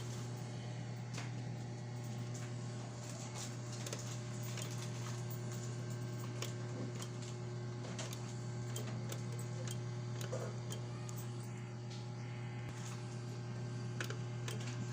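Desktop computer's fans and power supply running on a bench test, a steady low hum with a faint steady higher tone. A few light clicks of handling are scattered through it. The board powers up and keeps running.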